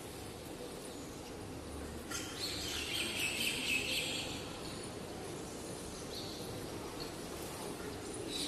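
Faint, steady background noise, with a hiss that swells for about two seconds starting about two seconds in.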